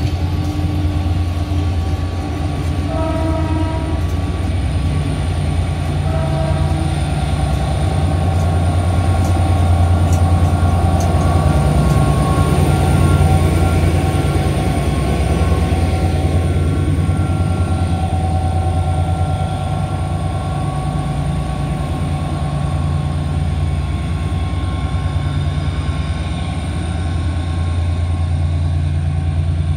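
Renfe diesel locomotive's engine running with a deep steady hum as it slowly moves a train of passenger coaches past, loudest around the middle as the locomotive goes by. A few brief high tones sound in the first seven seconds.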